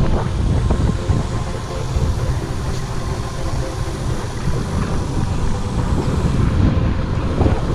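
Motor scooter engine running steadily while riding, with wind rumbling on the microphone.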